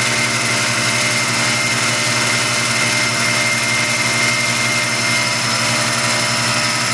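Tormach PCNC 1100 running as a Duality lathe, its spindle turning an aluminum spike on the slow-feed finish pass. The machine runs steadily, a hum with a steady high whine over it.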